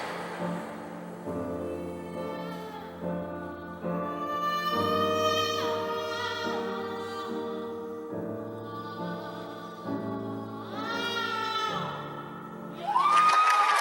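Operatic singing over orchestral accompaniment: a voice holding long notes with vibrato, the last one rising to a high note. Applause breaks in near the end.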